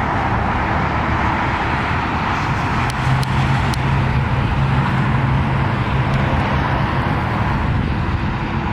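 Car cruising at freeway speed, heard from inside the cabin: steady tyre and road noise with engine hum, the low hum growing stronger for a few seconds in the middle.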